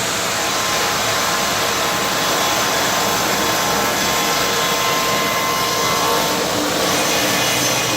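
CNC stone center's spindle milling granite: a steady, loud mechanical cutting noise with several steady whining tones over it.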